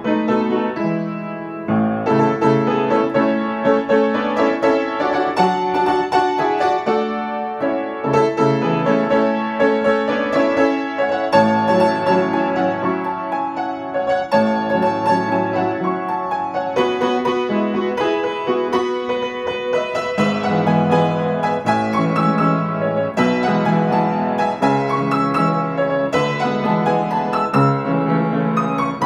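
Upright piano played solo: a classical piece in quick, dense runs of notes, with a short break about a second and a half in.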